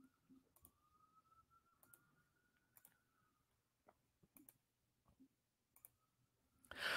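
Near silence with a few faint, scattered clicks from a computer mouse.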